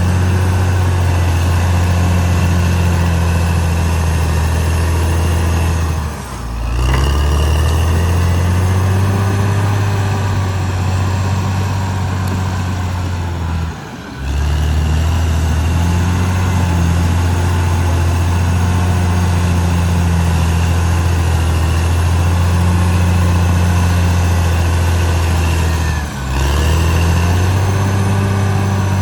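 Caterpillar D6R XL bulldozer's diesel engine running steadily under load, with a faint higher whine above it. The engine sound dips briefly three times, about six, fourteen and twenty-six seconds in.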